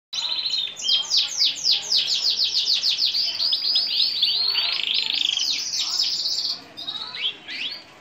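Crested canary in full song: a fast run of repeated falling notes, about eight a second, then a buzzing trill and clear whistled phrases, turning to softer, scattered notes in the last second or so.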